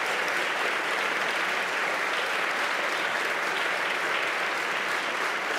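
Large indoor audience applauding, a dense steady clapping that holds at an even level.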